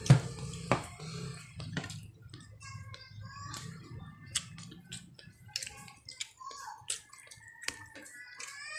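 Meal at a table: scattered clicks and knocks of hands and food on plastic plates and the tabletop, with two loud knocks in the first second.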